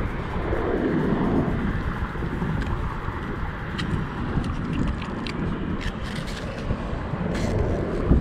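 Wind rumbling steadily on the microphone, with scattered small clicks from hands working a fish onto a stringer line during the second half.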